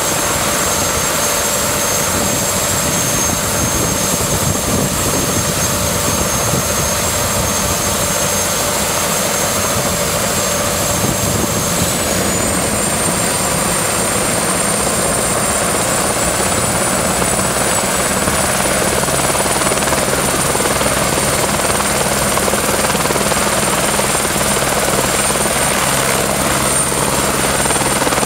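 Light turbine helicopter running on the ground with its main rotor turning: a steady high turbine whine over rushing rotor noise, the whine stepping up in pitch about twelve seconds in.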